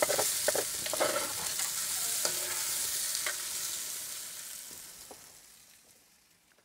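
Schupfnudeln (potato noodles) frying in hot fat and oil in a cast-iron Dutch oven, sizzling steadily, with occasional clicks and scrapes as they are stirred. The sound fades out near the end.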